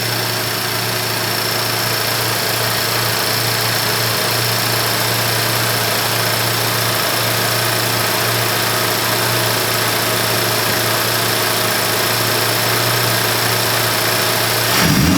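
Acura Integra Type S's turbocharged 2.0-litre four-cylinder idling steadily, heard from the intake side with an aftermarket bypass valve fitted. Near the end the throttle is blipped and the revs start to rise.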